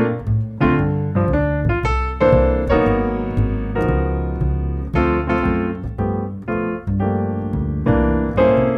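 Piano music: notes and chords struck about once a second, each ringing and fading away.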